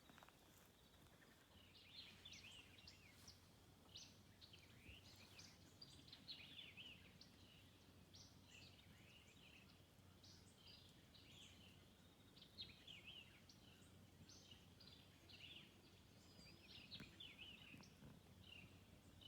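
Faint birdsong: many short chirps and trills from small birds, overlapping one another, over a quiet background hum.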